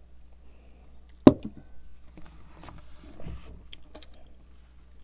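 A person sipping and tasting bourbon, with one sharp knock about a second in, then faint clicks and quiet mouth sounds.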